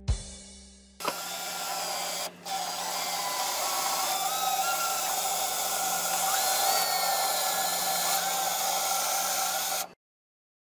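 A brief thump, then a power drill running steadily as it bores mounting holes into the wall, with a short stop about two seconds in. The drill cuts off abruptly near the end.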